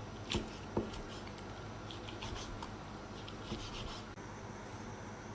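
Knife slicing cooked mutton on a cutting board: soft, faint scraping strokes, with a couple of light taps of the blade on the board near the start.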